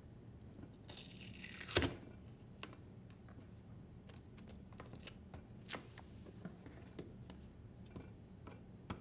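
Strip of adhesive filament tape peeled off a dishwasher's plastic tub, a short tearing rasp about a second in that ends in a sharp snap. Scattered light clicks and rustles follow as the rubber fill hose is worked loose from the tub.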